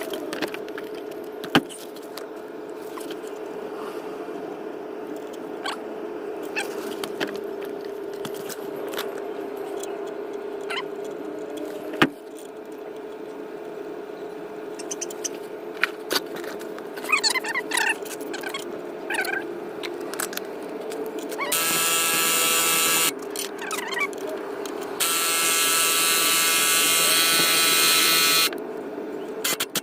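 Scattered clicks and clinks of hand tools and metal parts over a steady background hum, then two bursts of a power tool's motor whirring, one about a second and a half long and a longer one of about three and a half seconds near the end.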